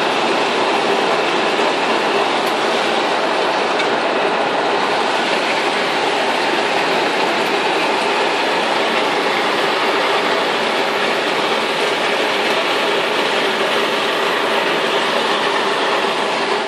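Heavy hailstorm: a dense, steady clatter of hailstones pelting down on the ground and trees.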